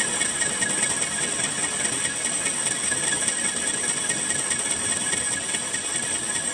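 Metal lathe cutting a steel rod: a steady, high scraping hiss of the tool working the metal.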